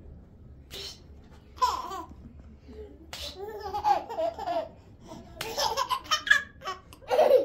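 Small children laughing in several bursts, with some babbling, while playing together.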